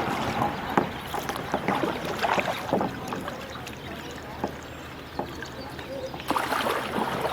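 Water splashing and dripping with small irregular knocks around a kayak, which grow busier and louder near the end.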